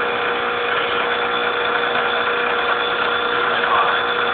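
Syntron electromagnetic vibratory feeder running at full control setting, a steady buzzing hum at a constant pitch.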